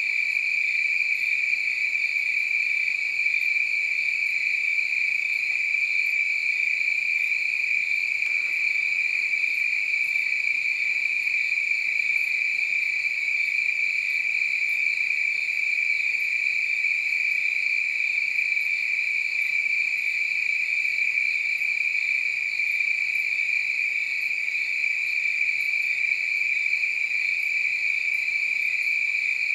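A chorus of crickets, many chirping at once in a steady, unbroken high-pitched drone.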